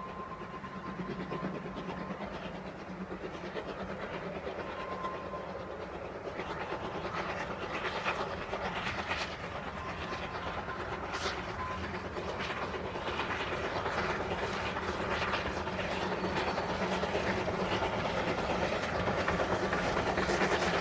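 Narrow-gauge train running on the Welsh Highland Railway, a steady rumble with the wheels clicking over the rail joints; the clicking grows denser and louder toward the end.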